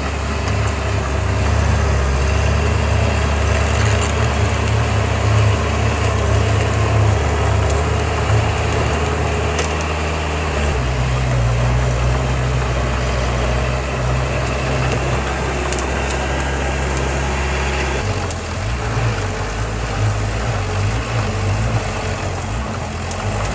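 Diesel engine of heavy earthmoving machinery running steadily, its low note shifting about eleven seconds in and again near eighteen seconds.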